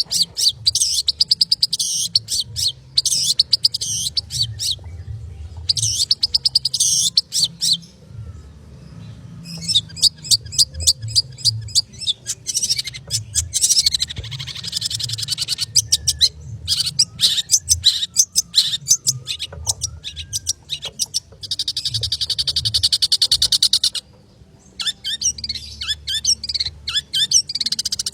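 Long-tailed shrike (cendet) singing a fast, tightly packed song of rapid high chirps. It comes in bursts of a few seconds with brief pauses between them.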